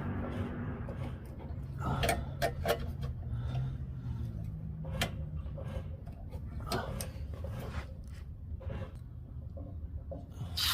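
Scattered clicks and clinks of hand tools working on metal engine parts while the carburetor is taken off a small snowblower engine, over a steady low hum.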